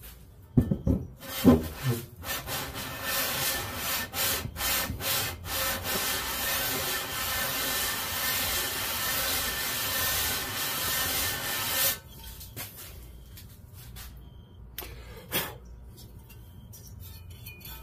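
Aluminium cylinder block of a Briggs & Stratton 5 hp flathead rubbed back and forth by hand on sandpaper laid on a flat bench, a rasping scrape that swells and fades with each stroke. The deck is being lapped flat so the head gasket seals on a surface that was warped and poorly machined. The sanding stops abruptly about twelve seconds in, followed by a few light clicks and a knock as the block is lifted.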